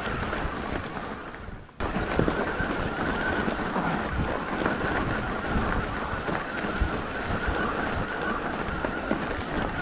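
Mountain bike riding on a dirt trail heard through an action camera's microphone: wind buffeting the mic over tyre noise and small knocks from the bike, with a faint steady whine throughout. The sound fades briefly and cuts back in suddenly about two seconds in.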